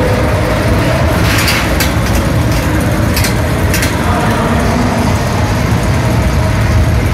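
Small roller coaster running along its steel track, a steady rumble heard from aboard, with a few brief hissing rushes between about one and four seconds in.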